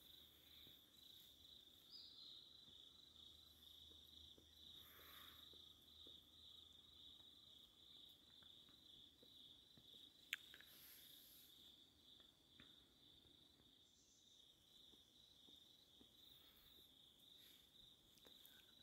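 Faint, steady high-pitched insect trill that runs on without a break, with one sharp click about ten seconds in.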